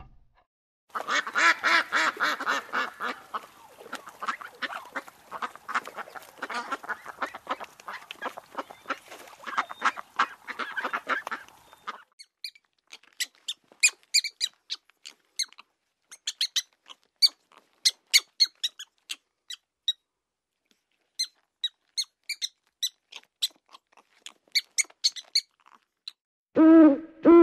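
A flock of geese or ducks honking and quacking in a dense, rapid chorus for about eleven seconds. Then come scattered short, high-pitched chirping calls, and an owl's low hoot begins near the end.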